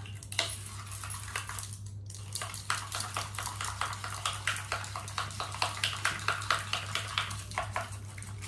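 Spoon stirring and scraping in a small steel bowl, mixing henna powder with water into a thin paste: a quick, uneven run of metallic clinks and scrapes, busiest in the middle.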